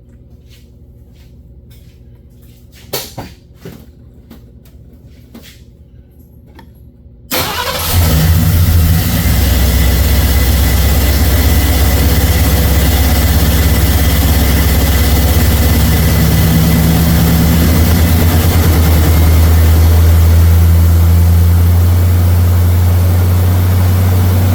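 Ford 302 V8 in a Thunderbird, fed by a freshly refitted two-barrel 2150 carburetor, catching abruptly about seven seconds in and then idling steadily and loudly. A few light clicks come before it. This is the start-up test of the carburetor that had been flooding the engine.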